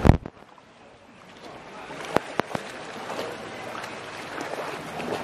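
Water lapping around an inflatable kayak and paddle, with a thump at the very start and a few sharp knocks about two seconds in.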